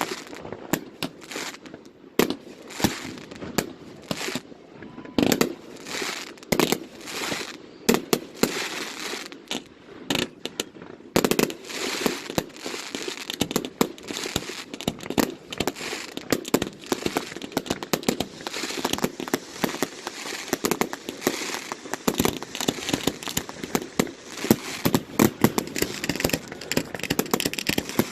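Fireworks finale: aerial shells bursting in rapid, overlapping bangs with crackling, growing denser after about ten seconds, with the loudest bangs near the end.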